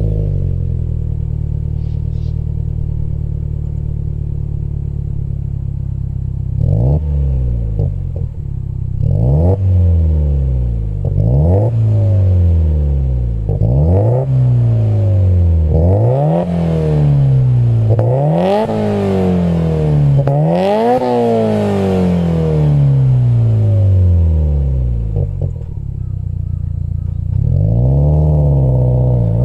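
Subaru WRX STI's turbocharged boxer four running through an HKS aftermarket muffler: idling steadily at first, then revved with a series of throttle blips, each rising in pitch and falling back. The blips climb higher and hold longer toward the middle, then it settles back to idle and is revved once more near the end.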